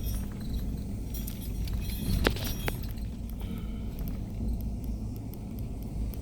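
Car driving slowly on an unpaved dirt road, heard from inside the cabin: a steady low rumble of tyres and engine with small rattles and clicks, and one sharper click about two seconds in.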